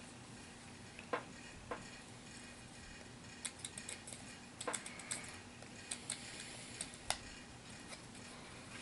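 Light, irregular plastic clicks and taps from handling a HeroClix miniature on its clicking base, a few at first and a quick cluster in the middle.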